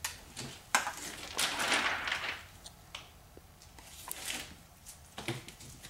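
Plastic window tint film being handled and slid on a car door window: irregular rustling and crinkling of the film, with a sharp tap about three-quarters of a second in.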